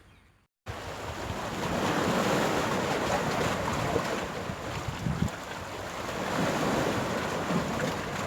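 Sea surf washing onto the beach, with wind buffeting the microphone; it cuts in abruptly about half a second in, then swells and eases twice.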